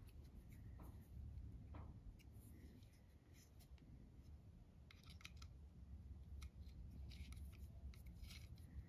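Faint, small metallic clicks and scrapes: a small hex key turning the screws that hold an air-assist cone onto a diode laser module's nozzle, in a few short clusters mostly in the second half, over a low steady hum.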